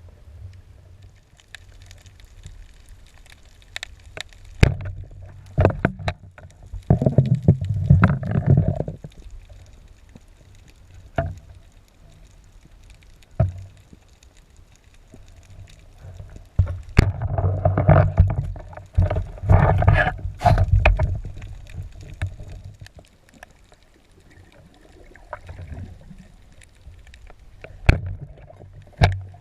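Muffled water noise from a spearfishing dive: two long spells of gurgling and bubbling, with scattered sharp clicks and knocks in between.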